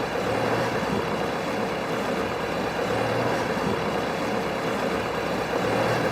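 Motor vehicle engine running steadily with a low drone, no sharp events.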